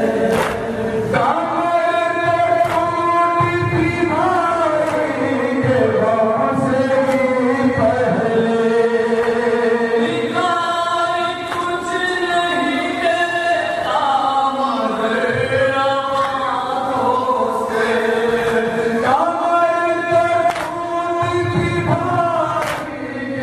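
Male voices chanting a noha, a Shia lament, together in long held and gliding notes, with the hand strikes of chest-beating (matam) keeping time beneath.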